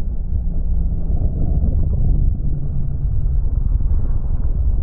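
Model airplane engine and propeller in flight, with wind rushing over the on-board camera, played back slowed down: a deep, steady rumble with nothing high-pitched in it.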